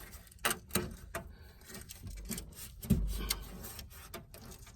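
Duct tape being handled and pressed against the inside of a metal electrical cabinet to pick up drilling debris: rubbing and rustling with a few sharp taps, one near the end with a dull thud.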